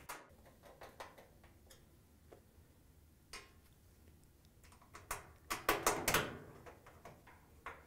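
Phillips screwdriver turning screws into a dryer's metal door alignment tabs: faint scattered clicks, then a denser run of clicking and scraping about five seconds in.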